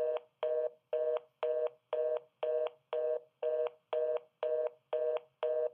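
Telephone fast busy (reorder) signal: a two-note tone beeping evenly about twice a second, the line's sign that the call cannot go through.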